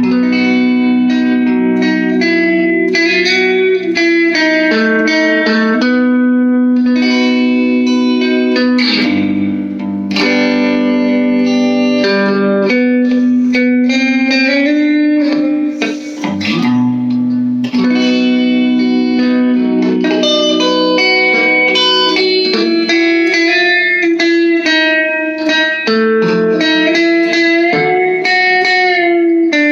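Electric guitar with both pickups combined in series, played through a small all-tube amp: a fat and juicy tone, continuous melodic playing with sustained notes and a couple of brief pauses.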